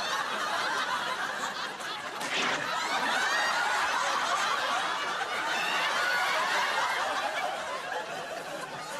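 A crowd laughing: many voices together, building up and then holding steady for several seconds.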